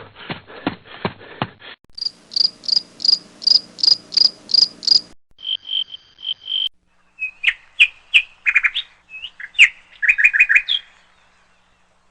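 A 2×2 Rubik's cube clicking as it is turned fast, about five turns a second, for the first two seconds. Then a run of high, bird-like chirps, first in a quick even series, then short whistles and trills, stopping near the end.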